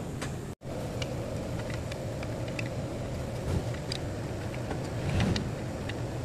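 Steady low mechanical hum, with light scattered clicks and taps from hands handling the engine's plastic timing chain guide. The sound cuts out briefly about half a second in.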